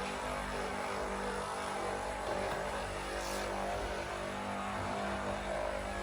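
A steady machine drone: a motor running at constant speed with an even, many-toned hum.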